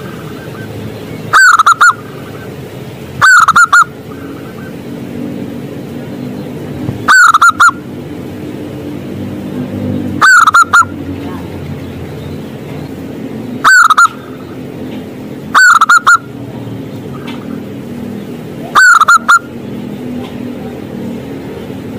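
Zebra dove (perkutut) singing: seven short phrases of quick cooing notes, one every two to four seconds, loud enough to hit the top of the level scale. A steady low background hum runs between the phrases.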